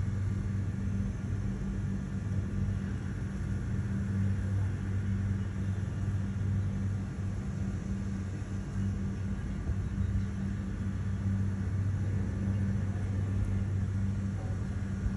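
A steady low hum from running machinery, unchanging and with no crackle or strikes.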